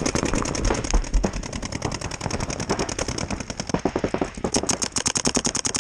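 Electronic paintball marker firing a rapid, even stream of shots, many per second, without a break.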